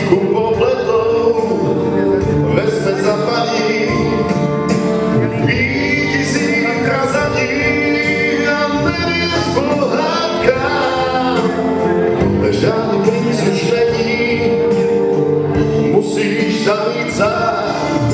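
Live amplified music: a male singer sings with long, wavering held notes into a handheld microphone over backing music.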